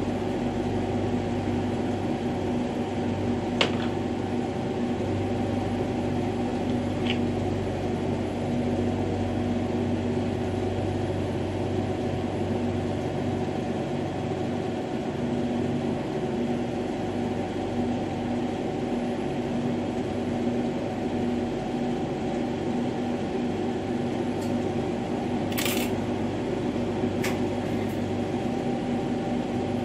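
Steady hum and hiss of a lit lampworking bench torch and the studio's fan or ventilation running while a thin glass rod is melted into a ring, with a few faint clicks of glass and tools.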